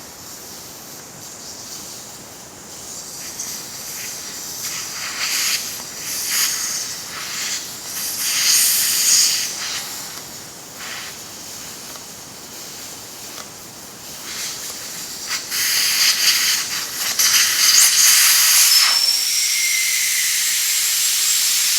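Air hissing out of a car tire's Schrader valve as the valve core is unscrewed with a valve core removal tool. It comes in uneven spurts at first, then about two-thirds of the way in becomes a steady, louder rush of escaping air as the core comes loose.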